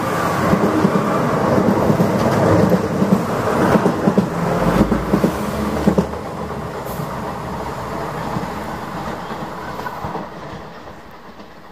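Irish Rail 22000 Class InterCity railcar passing close at speed: a loud rumble of wheels on rail with a few sharp clicks over the first six seconds. It drops off sharply about six seconds in and fades as the train draws away.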